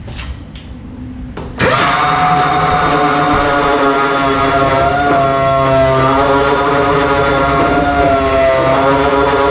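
Power sander starting up about a second and a half in, then running at a steady high pitch that dips slightly now and then as it is pressed into the fiberglass filler.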